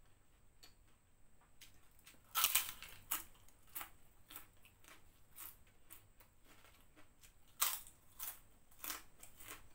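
Prawn crackers (kerupuk udang) crunching as they are bitten and chewed. There are two loud bites, about two and a half and seven and a half seconds in, with smaller crunches between.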